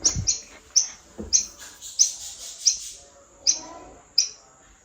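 Pet bird chirping: about eight short, sharp, high-pitched chirps, spaced roughly half a second to under a second apart.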